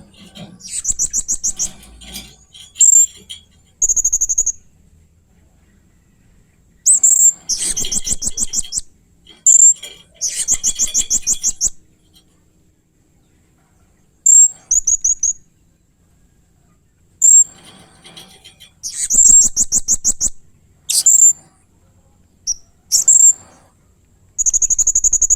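Blue-crowned hanging parrot (serindit) calling: short, shrill, high-pitched notes and rapid trilled phrases lasting one to two seconds, repeated with pauses between them.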